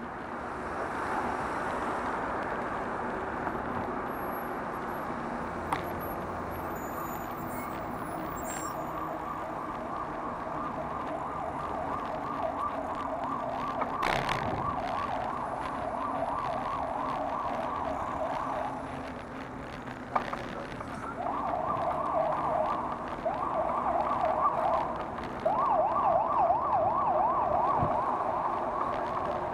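Emergency vehicle siren wailing in a fast up-and-down yelp. It breaks off briefly about two-thirds of the way through and comes back louder near the end, over city traffic noise.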